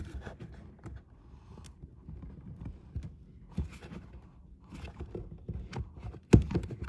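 Bosch dishwasher drain pump being twisted by hand out of its plastic mount: scattered small clicks, knocks and rubbing, with one louder knock near the end.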